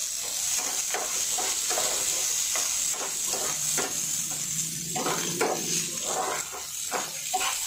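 Chopped onions sizzling in hot oil in a frying pan, stirred with a spatula that scrapes across the pan in quick, irregular strokes over a steady high hiss.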